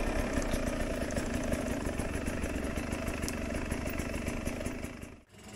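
Sherco enduro motorcycle engine running steadily at low revs, without revving, fading slightly before cutting off abruptly near the end.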